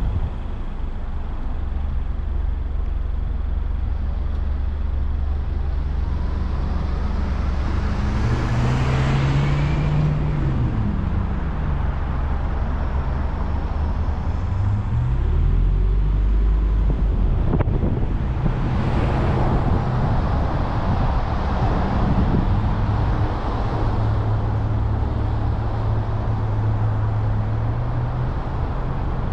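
A car driving on city streets: steady engine and tyre noise, the engine hum rising and falling in pitch as it speeds up and slows. Other vehicles pass close by, loudest about nine and again about nineteen seconds in.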